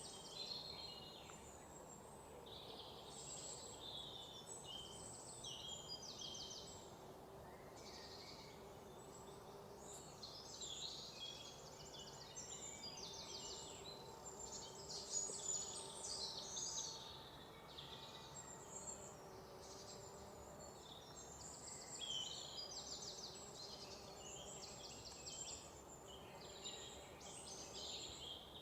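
Faint birdsong: many birds chirping and trilling in quick repeated notes, over a low steady background noise.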